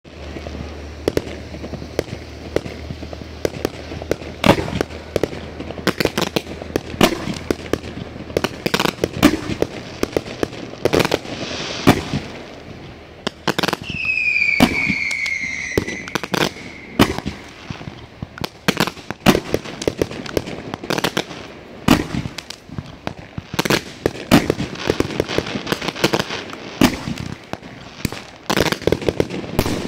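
A 100-shot fan fireworks cake firing: a rapid, uneven run of launch thumps and bursting reports. Around the middle a high tone falls in pitch for about two seconds.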